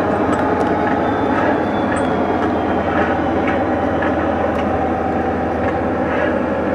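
Märklin gauge 1 model train running on garden track: a steady rolling rumble with a low hum, and faint regular clicks about twice a second as the coaches' wheels pass over the track.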